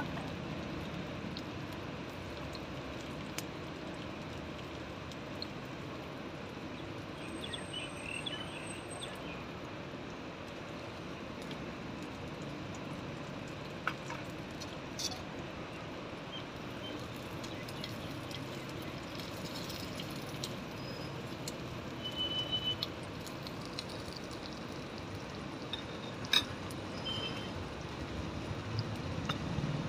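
Steady quiet outdoor background with a few light clinks from small steel cooking utensils and bowls.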